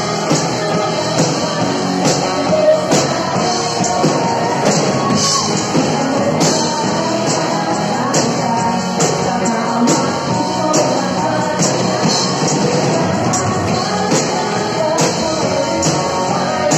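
Live worship band playing a rock-style praise song: a woman singing lead into a microphone over electric bass, guitar and a drum kit keeping a steady beat.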